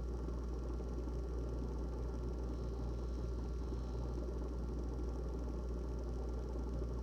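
GE refrigerator running: a steady low hum with a rough, buzzing texture over it and faint higher steady tones, unchanging throughout.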